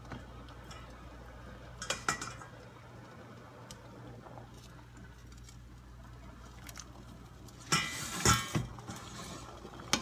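Boiled spaghetti being lifted out of a stainless-steel pan of water with a pasta server and moved into a metal colander: utensils clinking against the pan and colander in two short bursts, about two seconds in and a louder one around eight seconds in, with a few faint ticks between.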